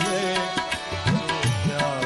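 Music: a drum rhythm with frequent strokes under a melody.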